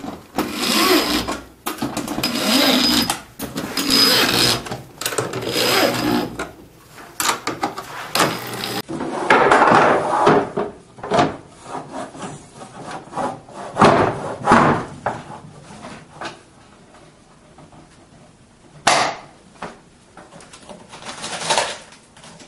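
Handheld power drill run in several short whining bursts against a plastic snow-pusher blade. After that come scattered knocks, clunks and rubbing as plastic fittings and handle poles are handled on a workbench.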